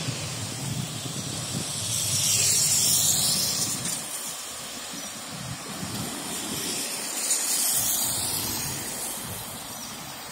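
Road traffic: two vehicles pass close by, one about three seconds in and another near eight seconds, their tyre and engine noise swelling and fading over a steady traffic hiss.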